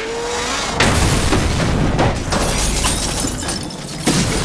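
Sound-design car crash: a heavy impact about a second in, then crashing and tumbling rock and debris with further hard hits around two and four seconds in. Background score runs underneath.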